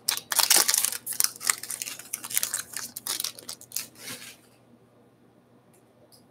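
A Series 1 baseball card pack being opened by hand: the wrapper crackles, crinkles and tears for about four seconds, then stops, leaving only a few faint clicks.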